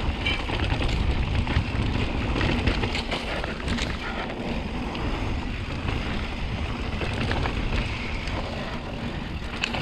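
Wind buffeting the microphone as a Kona Process 153 mountain bike descends a dirt trail, under tyre noise on the dirt and scattered clicks and rattles from the bike over rough ground.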